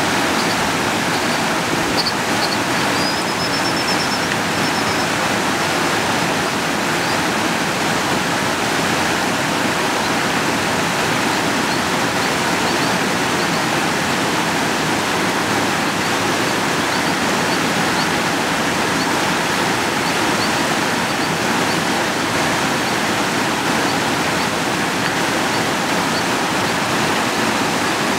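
Fast-flowing creek rushing steadily: an even, unbroken sound of running water that does not let up.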